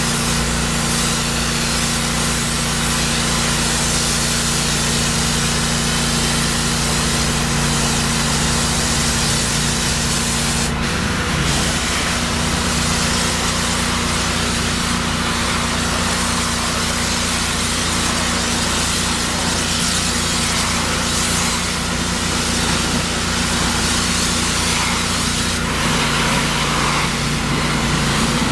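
Pressure-washer spray hissing steadily against a semi-truck's wheels and chassis, over the constant hum of an engine.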